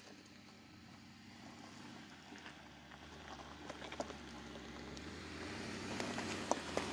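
2019 Mercedes-Benz G-Class crawling up a rocky track, its engine running low and steady and growing louder as it approaches. Its tyres crunch over gravel and loose stones, with sharp clicks that come more often near the end.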